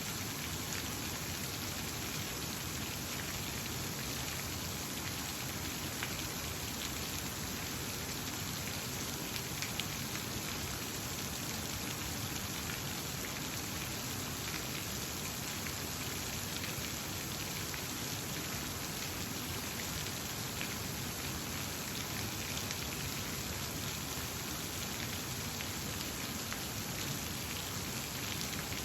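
Steady rushing, splashing water noise with faint scattered patters, even and unchanging throughout.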